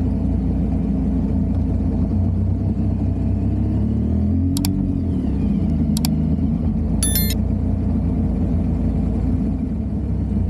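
Motorcycle engine running steadily under way, with riding noise. About four and a half seconds in its pitch dips and rises again. Two sharp clicks and a short high bell chime come from a like-and-subscribe animation about 5 to 7 seconds in.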